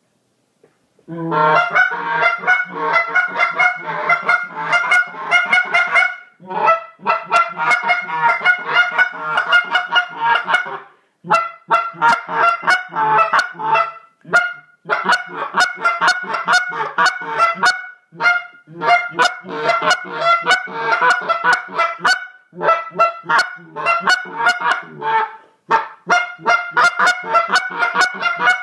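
A goose call blown by a person: fast runs of honks and clucks, each run a few seconds long with short breaks between, starting about a second in.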